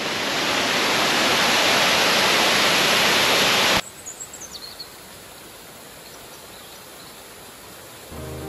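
Water rushing down a waterfall's rock-slab cascade at close range, loud and steady. About four seconds in it cuts off to a much quieter outdoor background with a few high bird chirps, and music begins just before the end.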